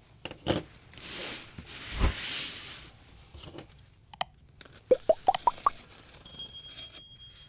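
A small knife slitting tape and cardboard on a shipping box, with cardboard scraping and handling noises and a quick run of short rising squeaks about five seconds in.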